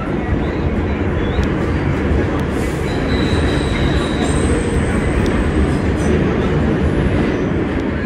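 R46 subway car running at speed through a tunnel: loud, steady rumble and clatter of wheels on rail. A thin, high wheel squeal comes in about three seconds in and lasts a few seconds.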